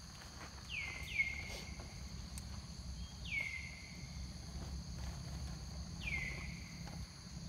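Steady high buzz of insects, with short whistled calls that drop in pitch and then level off: two close together about a second in, one at about three seconds and one at about six.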